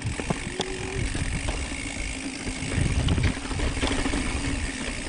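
Mountain bike riding over a dirt and rock trail: a steady rumble of tyres on the ground, with short knocks and rattles from the bike over bumps.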